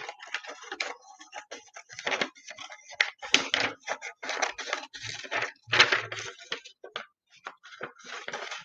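Paper rustling and crackling as a page of a spiral-bound workbook is handled and worked loose, in a string of short, irregular bursts with a brief pause about seven seconds in.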